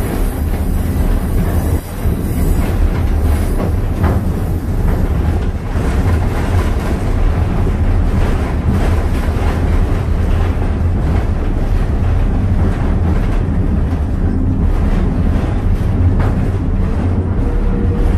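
Passenger train hauled by a steam locomotive, heard from aboard as it rolls along the track: a steady, loud low rumble with irregular clicks and rattles from the wheels and coaches.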